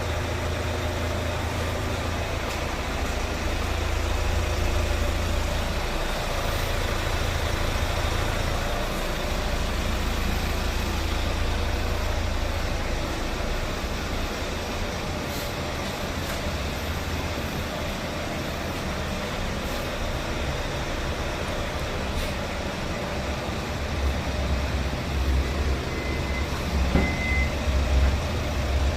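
Vehicle engine idling: a steady low rumble that grows a little uneven near the end, with two short high beeps near the end.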